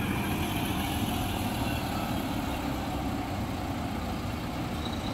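Volvo B11R coach's six-cylinder diesel engine running steadily at low revs as the bus pulls slowly past and away.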